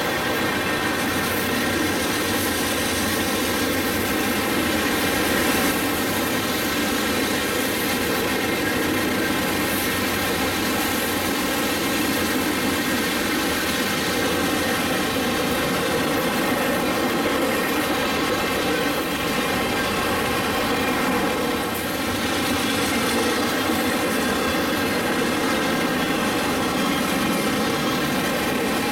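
Florida East Coast Railway freight cars rolling past at speed: a steady, loud rumble and rattle of steel wheels on the rails, with steady ringing tones mixed in.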